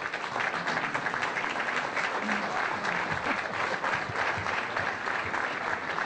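Audience applauding steadily: a dense, even clatter of many hands clapping.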